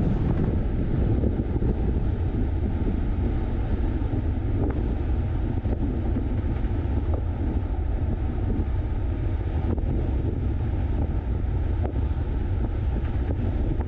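Vehicle driving on the road: a steady low rumble of road and engine noise, with wind buffeting the microphone.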